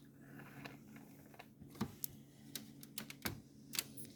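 Scattered light clicks and knocks as an espresso machine's portafilter is twisted out of the group head and handled, over a faint steady low hum.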